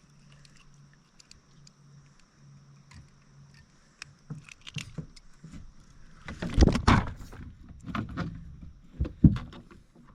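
Irregular knocks and clunks against a plastic fishing kayak's hull as gear and the paddle are handled, starting faint with small clicks and growing louder about halfway, with the heaviest knocks a little past the middle and near the end.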